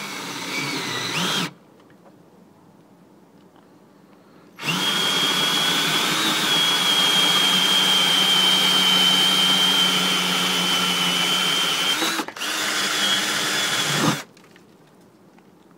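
Power drill with a long extension and spade bit boring through wooden roof boards. It runs briefly and stops about a second and a half in. It then starts again and runs steadily for about seven and a half seconds, breaks off for an instant, and runs about two seconds more before stopping.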